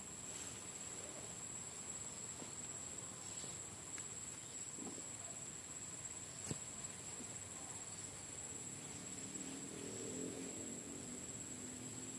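Steady high-pitched chirring of an insect chorus, with a single sharp click about six and a half seconds in.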